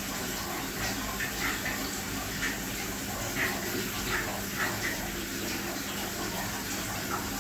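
Aquarium water running steadily, as from a filter outlet trickling into the tank, with a faint steady hum from its pump.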